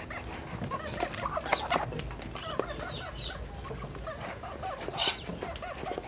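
Farm poultry calling in many short chirps, with a few sharp taps.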